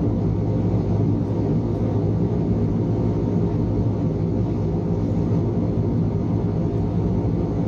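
Steady drone of an airliner in flight, engines and rushing air heard inside the passenger cabin as an even low rumble.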